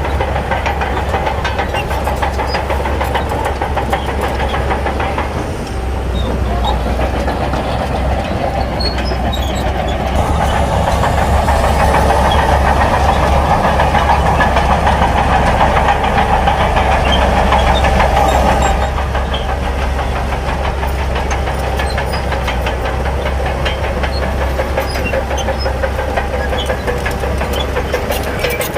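Shantui bulldozer's diesel engine running under load with a steady low hum and continuous clanking rattle of its steel tracks, getting louder for several seconds in the middle of the push before easing back.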